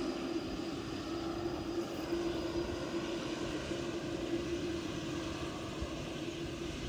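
Boeing 787-8 Dreamliner's Rolls-Royce Trent 1000 turbofan engines running at low thrust as the airliner taxis along the runway: a steady engine hum with an even droning tone and a faint high whine, neither rising nor falling.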